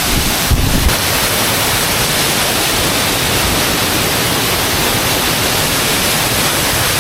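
Waterfall's steady rush of falling water, loud and close, with some low buffeting on the microphone in the first second.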